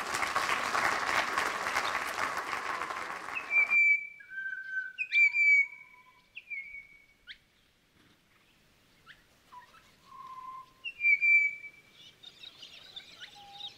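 An audience applauding, which cuts off abruptly about four seconds in. Then recorded birdsong: clear whistled notes and quick upward sweeps, with fainter chattering near the end.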